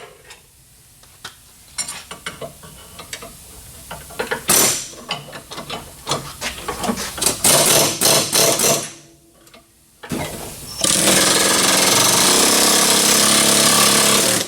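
Impact wrench hammering on a seized sway bar end link nut, in short bursts with metal clatter and then one long steady run of about four seconds near the end. The nut does not come free: the link ends up having to be cut.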